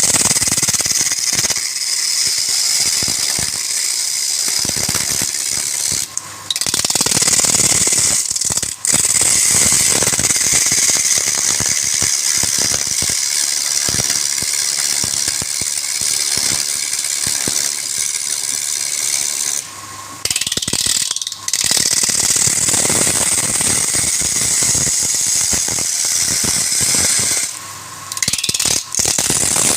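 Wood lathe with a turning tool cutting a spinning workpiece: a loud, steady, rough scraping with rapid rattling chatter. The cut breaks off briefly several times as the tool is lifted and set back.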